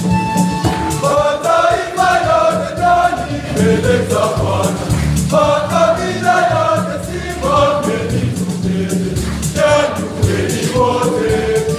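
Large choir of many voices singing a Swahili Catholic gospel song in phrases, over a steady low accompaniment and a regular drum beat.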